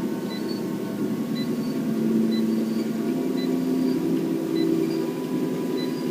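Treadmill motor and belt running steadily with a low hum, its tones shifting slightly in pitch as the speed is stepped up. Faint short high ticks come about once a second.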